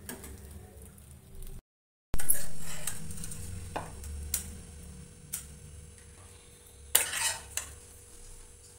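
A spatula stirring cooked poha (flattened rice) in a non-stick pan. After a brief break it becomes a steel spatula scraping and clinking against the pan as the poha is scooped out onto a plate. A sharp knock just after the break is the loudest sound, and a few more clinks follow, the strongest near the end.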